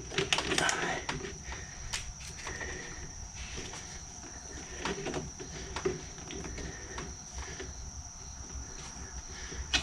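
Faint scattered clicks and rustles of hands working a coolant hose loose at the thermostat housing of a 3.6L V6, with a steady high-pitched whine throughout.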